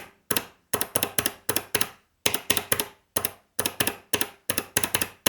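Kailh Box Navy mechanical keyboard switch pressed and released over and over on a switch tester. It makes sharp clicks in quick runs of several presses, the crisp snap of its click-bar mechanism.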